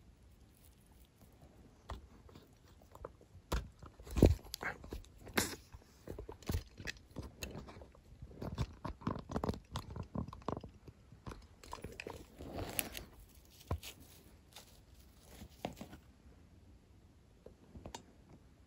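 Footsteps crunching over dry leaves and twigs on a forest trail: an irregular run of crunches and snaps, with the loudest snap about four seconds in. The crunching dies down after about sixteen seconds, leaving a few faint clicks.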